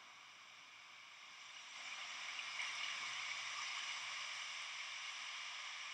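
Steady rushing hiss of steam and cooling water at an RS-25 rocket engine test stand as the engine shuts down, swelling about two seconds in.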